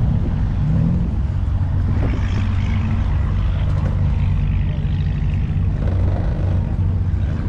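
Car engine running steadily with a low, even rumble.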